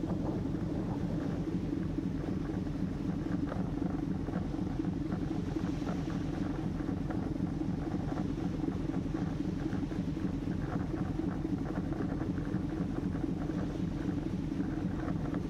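Steady low drone of a car ferry's engines under way, heard from the open deck, with a faint hiss of wind and water over it.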